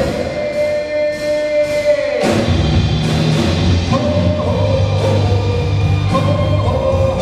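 Live band music on violin, cello and drum kit. A single long note is held for about two seconds over a thin low end, then the full band with bass and drums comes back in.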